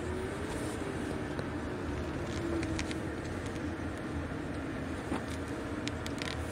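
Steady engine and tyre noise inside a car driving slowly, with a faint hum that wavers a little in pitch and a few light ticks.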